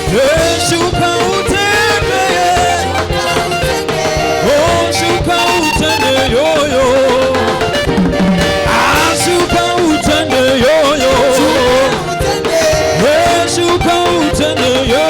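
Live gospel praise music with singing over a steady drum beat.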